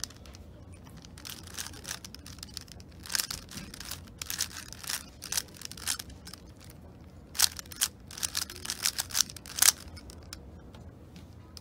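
A plastic 3x3 puzzle cube being turned rapidly by hand: quick runs of clicks and clacks as its layers snap round, coming in irregular flurries, loudest in the second half.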